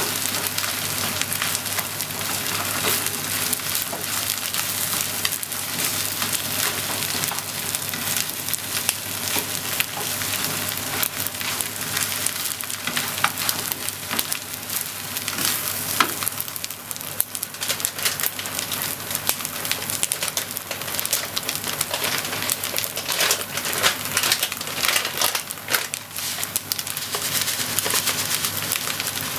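Fried rice sizzling in a nonstick frying pan as a spatula stirs and turns it, with frequent small clicks and scrapes of the spatula against the pan.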